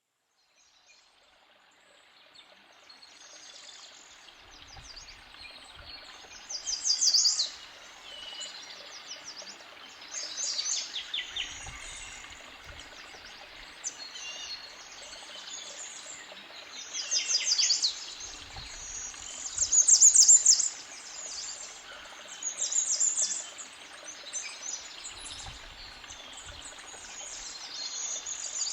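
Forest creek bubbling steadily, fading in over the first few seconds, with woodland birds singing over it. The birds sing several short phrases of rapid high notes, the loudest about two-thirds of the way in.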